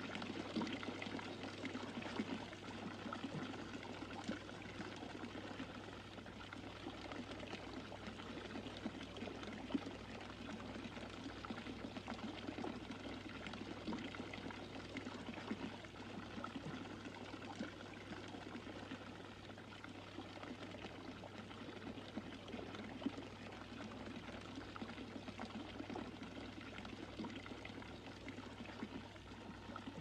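Water gushing steadily from a fountain, a film sound effect, with a low steady hum beneath it.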